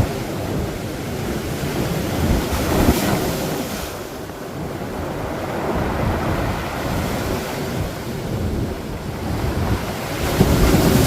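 Storm surf breaking on a beach, with strong wind buffeting the microphone. The rush of the surf swells about three seconds in, eases off, then builds again near the end.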